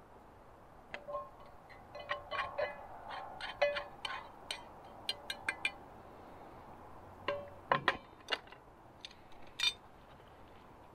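Metal spoon clinking and scraping against a small metal cooking pot while spooning sauce out of it. A quick run of sharp clinks, some with a short ring, then a few scattered clinks further on.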